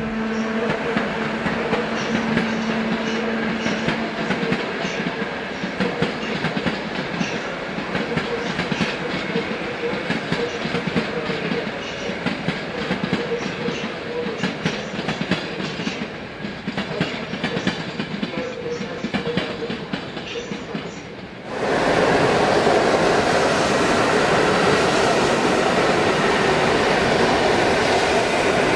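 Electric locomotive-hauled passenger train running over railway points, its wheelsets clattering through the turnouts, with a steady hum from the locomotive in the first few seconds. About 21 seconds in, the sound jumps suddenly to a louder, steady rumble of another train's coaches rolling past close by.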